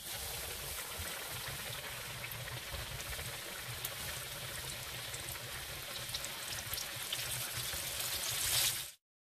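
Flour-dredged whole red snapper frying in a pan of hot oil: steady sizzling dotted with small pops and crackles, swelling louder just before it cuts off near the end.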